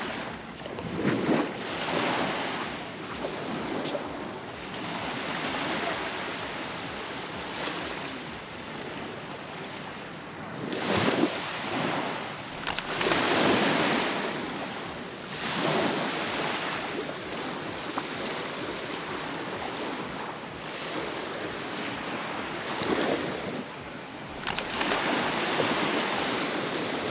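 Baltic Sea surf breaking on a sandy beach: a continuous wash of waves that surges louder several times as breakers come in.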